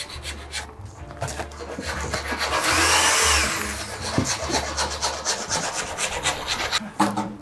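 Black duct tape being pulled off the roll and wrapped around a foam sleeve. There is one long, loud rip of tape about midway, with shorter crackling tears and rubbing of the tape being pressed down before and after.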